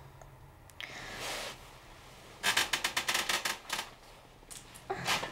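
Bedclothes and a padded blanket rustling as a person sits up in bed: a soft rustle about a second in, then a quick run of crisp, crackly rustles about halfway through.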